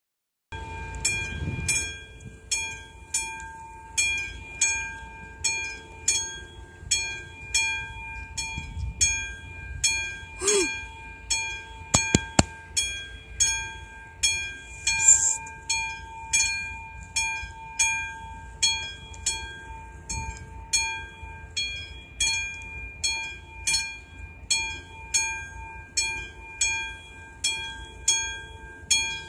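Railway level-crossing warning bell ringing steadily at about one and a half strokes a second, the signal that a train is approaching. A couple of sharp clicks sound about twelve seconds in.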